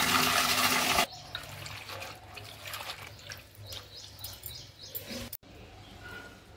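Water pouring from a tap onto a heap of amaranth leaves for about a second, then stopping, followed by irregular drips and small splashes as the wet leaves settle; the sound drops away abruptly about five seconds in.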